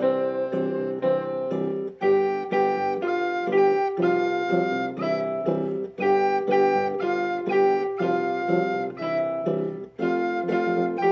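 A plastic soprano recorder playing a melody of short and held notes over a chordal backing accompaniment, with brief breaks about every four seconds.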